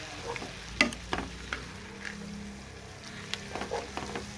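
Food sizzling in a frying pan while a spoon or spatula stirs it, scraping and knocking against the pan in irregular clacks; the loudest comes just under a second in.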